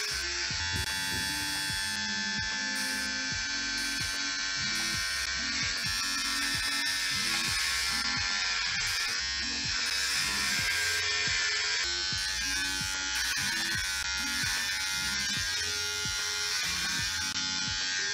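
Electric hair clippers buzzing steadily as they shave hair off the side of the head, with background music underneath.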